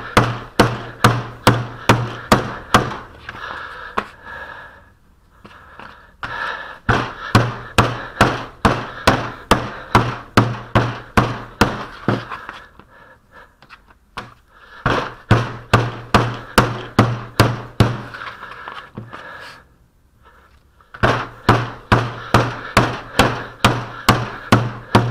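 Round wooden mallet repeatedly beating a lump of old Sarco Type M glazing putty on the bench, about three dull strikes a second. The runs of strikes break off briefly about five, thirteen and twenty seconds in as the putty is folded over. The beating and folding remixes putty that has gone stiff and short with age.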